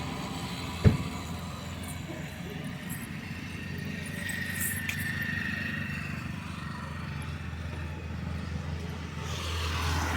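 Steady low hum of road traffic, with one sharp knock about a second in.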